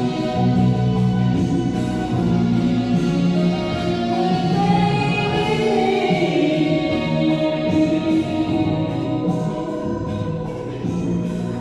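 Music: a song sung karaoke-style over a KTV backing track, with long held notes and a sliding vocal line midway.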